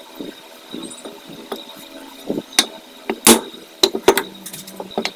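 Sharp metal knocks and clinks of a steel oil-seal driver against an aluminium motorcycle crankcase while an oil seal is seated in its bore. The knocks come irregularly from about two and a half seconds in, the loudest just after three seconds.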